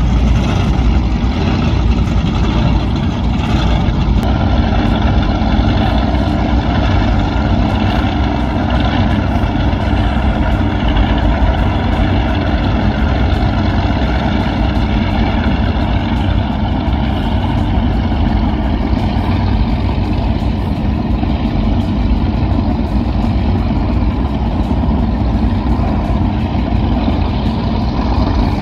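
Offshore performance powerboats running slowly past at low throttle, giving a loud, steady, deep engine rumble. The tone shifts a little as one boat follows another.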